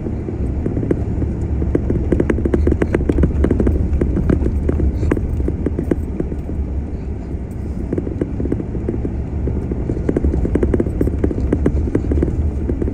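Vehicle driving over a gravel dirt track: a steady low rumble with dense crackling and rattling from the gravel and the vehicle, busiest a couple of seconds in and again near the end.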